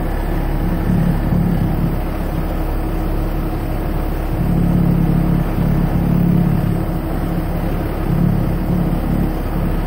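Truck engine running at low speed, heard from inside the cab: a steady low drone that swells and eases.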